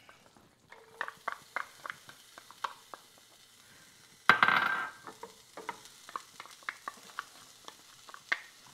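A wooden spoon taps and scrapes chopped onion and garlic from a small bowl into melted butter in a stainless skillet, making many sharp clicks over a faint sizzle. About four seconds in there is a louder rush of sizzling, under a second long.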